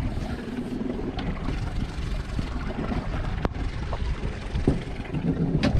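Boat motor running steadily at trolling speed, with wind buffeting the microphone. Two sharp clicks, one about halfway through and one near the end.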